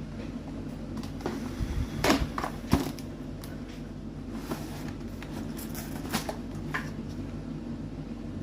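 Packaging being handled and opened: scattered clicks and short crinkling rustles of a box and its plastic insert, the loudest about two and three seconds in, over a steady low hum.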